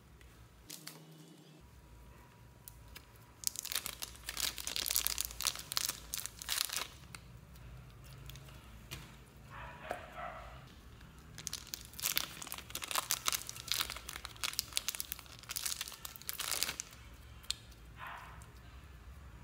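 Slime being squeezed and pressed flat by hand in a plastic tub, giving wet crackling and popping clicks. There are two long spells of crackling, a few seconds in and again after a quieter pause, with softer squishing between.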